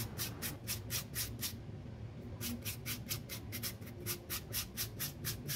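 Raw potato being grated on a handheld flat metal grater. Rapid, rhythmic rasping strokes come at about five or six a second, with a short break about one and a half seconds in.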